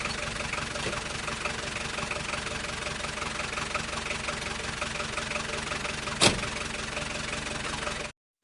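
Car engine running steadily, used as a taxi sound effect, with one sharp knock about six seconds in. The sound cuts off suddenly near the end.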